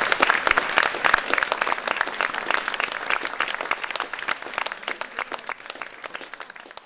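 Audience applauding at the end of a song, the clapping dying away gradually.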